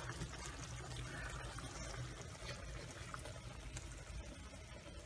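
Faint, steady bubbling of food cooking on the stovetop: tomato sauce simmering in a pan and a pot of pasta water boiling.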